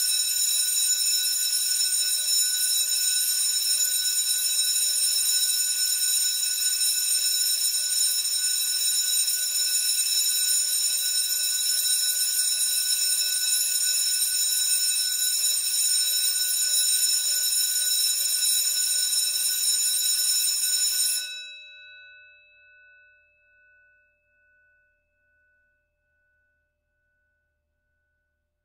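Electric school bell ringing continuously at a steady loud level, a rattling ring of several high tones. It cuts off about 21 seconds in, and the gong rings on, fading in slow pulses over several seconds.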